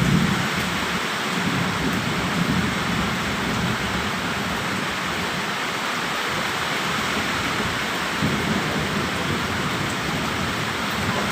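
Heavy rain pouring steadily, with low rolling thunder that is loudest at the start, then rumbles up again a couple of times.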